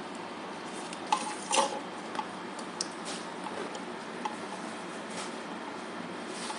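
A handful of small, sharp clicks and light clinks at irregular intervals, the loudest about a second and a half in, over a steady hiss.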